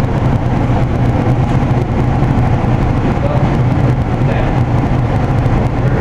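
Riello 40-series oil burner's motor and blower running steadily with a low hum.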